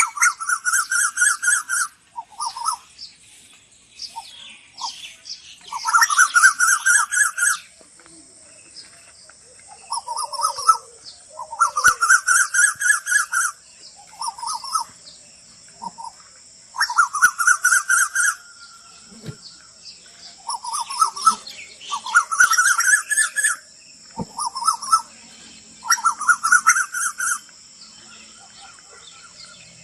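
A bird calling in repeated bursts of rapid notes, each burst about two seconds long and slightly rising, every few seconds. A steady high-pitched tone runs behind them from about a quarter of the way in.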